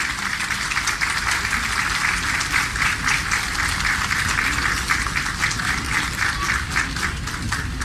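Audience applauding with many hands clapping, the clapping thinning out near the end.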